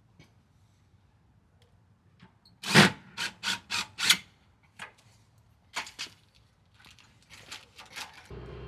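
Sharp knocks and taps from work on a storm door: a quick run of five loud ones about three seconds in, then a few scattered, fainter ones. Near the end a steady hum sets in.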